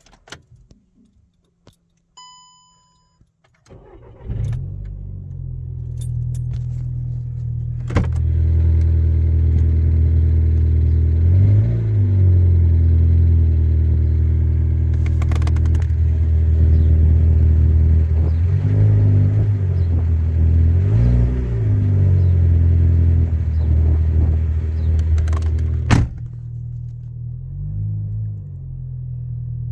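Volkswagen Golf Mk5 GTI's 2.0 TFSI turbocharged four-cylinder started from cold. Keys jingle, a dashboard chime sounds about two seconds in, and the engine catches about four seconds in and idles. The idle note wavers in pitch every several seconds, the weird sound it makes when cold. A click about eight seconds in brings the engine louder, and a second click near the end drops it sharply.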